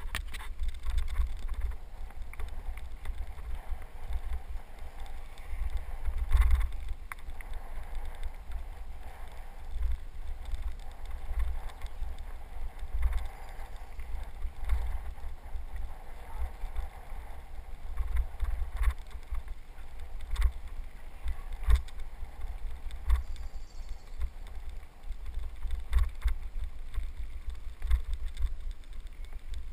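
Wind buffeting a helmet-mounted camera's microphone during a bicycle ride on a dirt trail, an uneven low rumble. Tyres crunch on the dirt, with scattered knocks and rattles as the bike hits bumps.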